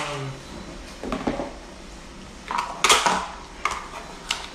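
Plastic food containers and their lids being handled on a tabletop: a few short knocks and clatters, the loudest about three seconds in.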